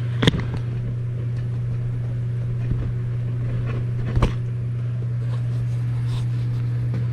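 Steady low machine hum from the smoke-leak-test equipment running, with two sharp knocks of handling, one just after the start and one about four seconds in.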